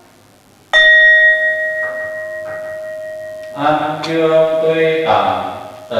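A Buddhist bowl bell is struck once about a second in and rings on with a steady, slowly fading tone. About three and a half seconds in, a man begins chanting over the ringing.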